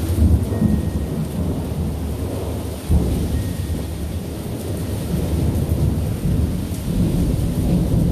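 Thunder rumbling with steady rain. A fresh peal breaks in right at the start and another about three seconds in, each rolling on in a long low rumble.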